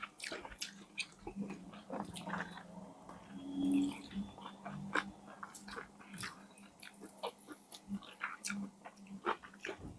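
Close-miked mouth sounds of people eating fried chicken with their hands: irregular biting, chewing and lip smacks with scattered wet clicks.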